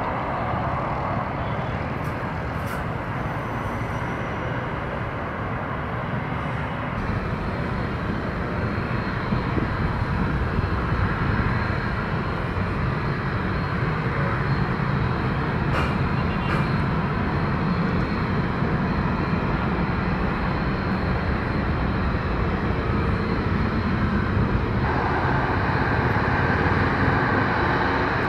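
Jet engine noise from a flydubai Boeing 737 MAX 8 taxiing, its CFM LEAP-1B turbofans at low thrust: a steady rumble and hiss, with the engine whine growing louder near the end.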